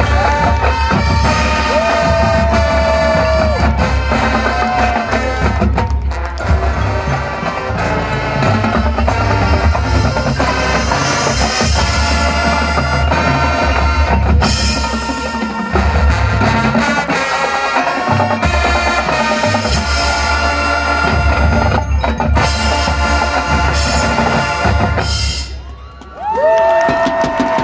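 High school marching band playing live: brass with drumline and front-ensemble percussion. Near the end the music drops off briefly, then the band comes back in on long held notes.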